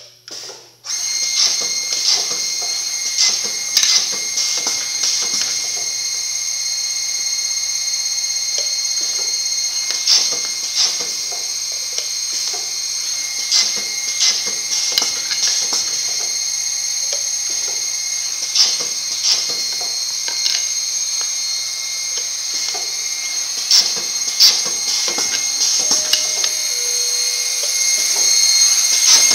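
Omal Velox CNC boring and inserting machine running with a steady high-pitched whine, which starts about a second in, with scattered knocks and clicks from the machine's boring and clamping and from wood pieces being handled.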